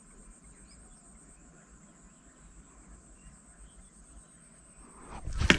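Steady high-pitched drone of insects over faint outdoor background, cut off near the end by a sudden loud sharp knock.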